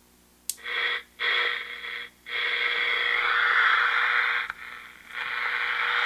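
A 1966 General Electric transistor pocket radio with a reed-type speaker switched on with a click about half a second in, then hiss and static from its speaker. The static cuts out briefly a few times while the dial is turned in search of a station.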